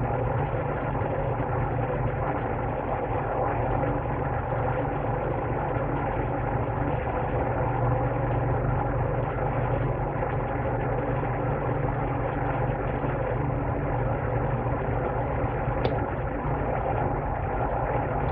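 Steady, unchanging machine hum with a few held tones, running as a constant background drone; a faint short click about sixteen seconds in.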